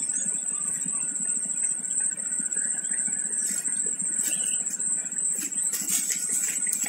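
Steady low background noise under a constant thin high-pitched whine. From about halfway in come soft crackling rustles of twigs and leaves as a spotted dove shifts about on its nest over its chicks.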